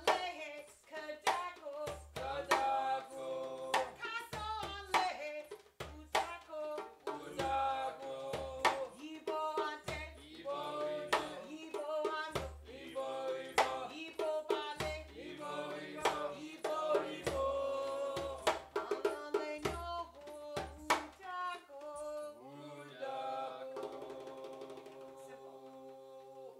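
Djembe drums played together in a repeating rhythm, sharp slaps over regular deep bass strokes, while a woman sings over them. About 22 seconds in the drumming stops and the singing goes on alone in long held notes.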